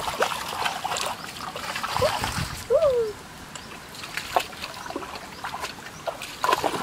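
Shallow stream water splashing and sloshing irregularly as bare feet and hands wade through it and scoop at it. About three seconds in there is a short squeaky call that rises and falls in pitch.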